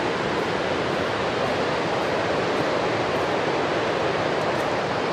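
Steady, unbroken rush of Lampson Falls, a large waterfall.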